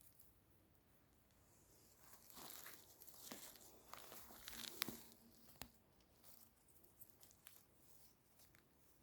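Faint rustling and crackling of forest-floor litter, with a cluster of rustles and sharp snaps between about two and six seconds in.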